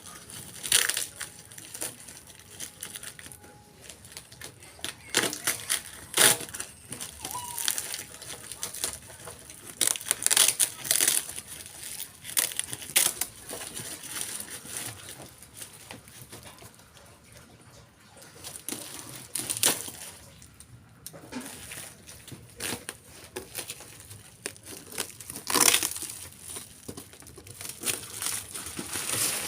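Parcel packaging being torn open and handled: plastic wrapping crinkling and tearing in irregular crackling bursts.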